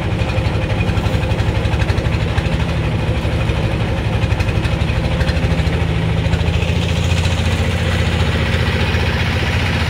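Engine of a small passenger river boat running steadily underway, a fast even chugging with a strong low hum.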